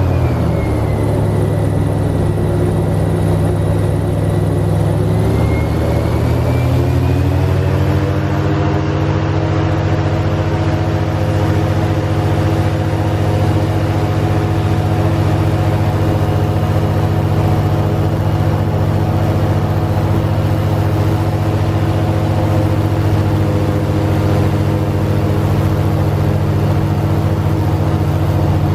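Airboat's engine and propeller running loud and steady at cruising speed. The pitch sags about a second in and climbs back up around six to seven seconds, as the throttle eases off and opens again.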